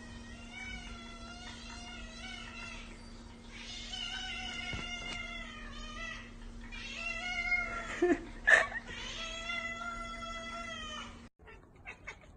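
A cat meowing in long, drawn-out, wavering calls, four of them in a row, with a short, louder cry about eight and a half seconds in. A steady low hum runs underneath until the sound cuts off near the end.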